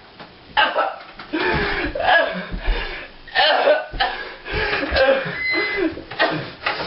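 A young man's wordless yelling, grunting and coughing in short loud outbursts during a freak-out.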